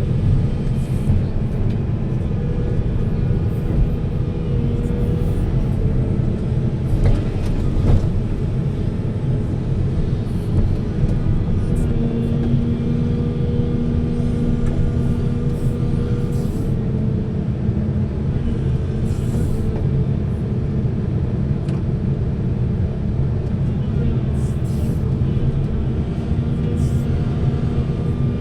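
Heavy diesel earthmoving machinery running under load with a steady low rumble; a held engine tone comes in partway through for several seconds, and a few short knocks sound near the start.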